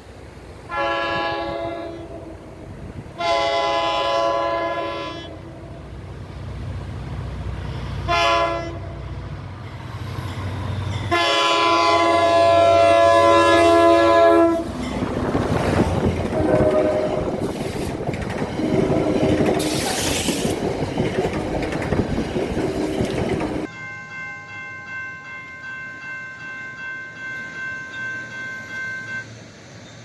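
Locomotive multi-chime air horn sounding two long blasts, a short one and a final long blast: the long-long-short-long grade-crossing signal. The train then rumbles past with more horn notes over it. Near the end a quieter steady-toned sound follows.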